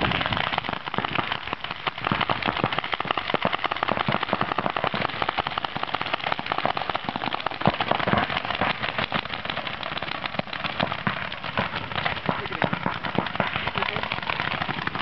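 Paintball markers firing: rapid, overlapping strings of sharp pops from several guns at once.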